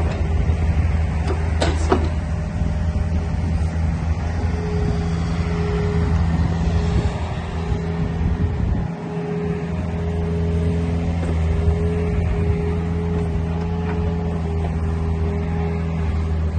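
New Holland E50-2C mini excavator's diesel engine running steadily while the machine slews round and works its boom. A higher tone comes and goes over the engine note.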